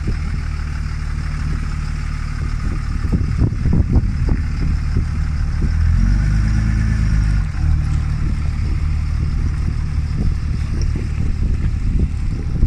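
Engine of a Dodge Ram 3500 pickup with a camper body running as the truck pulls slowly away over gravel. The low rumble swells about six seconds in and eases off a second and a half later, with scattered crackles a few seconds in.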